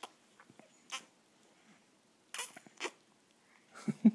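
A baby popping her lips and mouth: a few short, sharp pops spread apart, then near the end a quick rhythmic run of short voiced pulses, about six a second.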